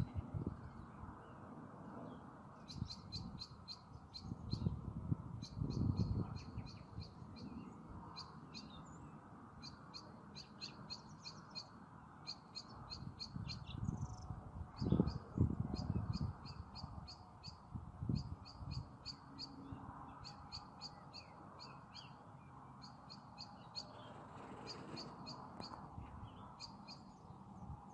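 A small bird calling over and over: quick runs of sharp, high clicking notes, each run about a second long, repeated every second or two, over a steady low hiss. A few short low rumbles break in, the loudest about halfway through.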